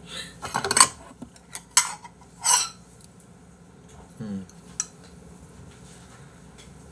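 Clinking and clattering of a bowl and chopsticks being handled for eating, with a run of sharp clinks in the first three seconds and one more click around five seconds in. A brief voice sound comes about four seconds in.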